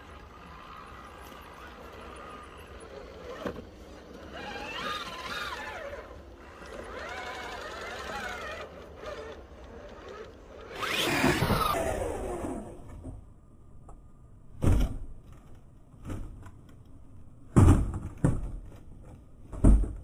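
RC crawler's electric motor whining, its pitch rising and falling, with one louder falling whine about halfway through. Then four sharp knocks over the last few seconds.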